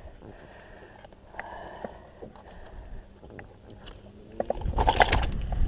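Faint scattered clicks and rustles as fishing pliers and a mesh landing net are handled. About four and a half seconds in, a much louder low rumble begins, with a short rush of noise near the end.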